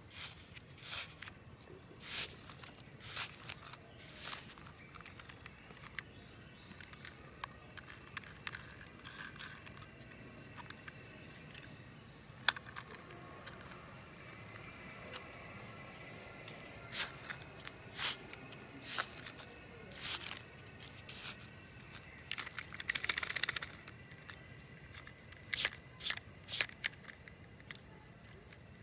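Small plastic toy trucks handled in sand: scattered clicks and knocks of hard plastic, with short gritty scrapes and rustles of sand, and a longer rustling scrape near the end.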